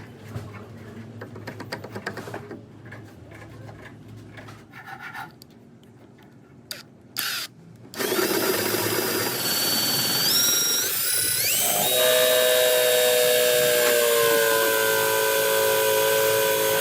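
Faint rubbing and clicking, then about eight seconds in a power drill starts up loud. Its whine climbs in pitch over a couple of seconds and then runs steadily.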